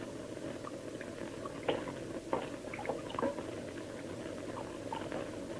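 Steady low hiss of an old television soundtrack, with a few faint scattered clicks and rustles.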